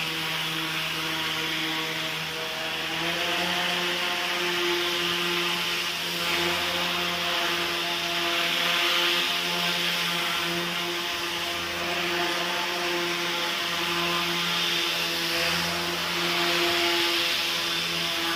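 Small electric motor and propeller of a homemade RC air sled buzzing steadily as the sled drives across a tiled floor, with small shifts in pitch as the throttle changes.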